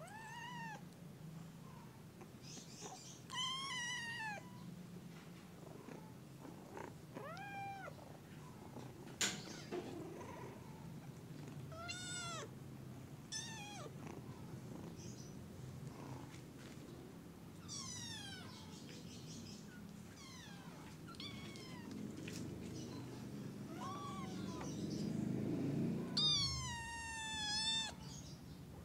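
Kitten meowing over and over: short, high-pitched meows with pauses between them, ending in a longer, louder, wavering meow near the end. A single sharp tap sounds about nine seconds in.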